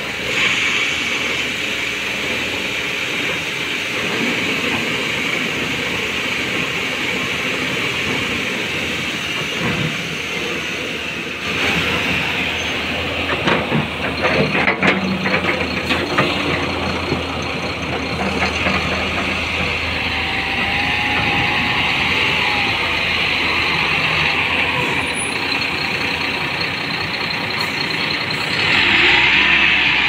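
Diesel engines of a tipper truck and a JCB backhoe loader running hard as the backhoe pushes the truck out of deep mud, with a run of knocks and clatter from about twelve to sixteen seconds in.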